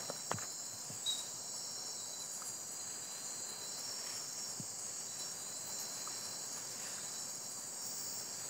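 Steady night chorus of crickets and other insects, a continuous high trilling, with a couple of faint clicks about a second in.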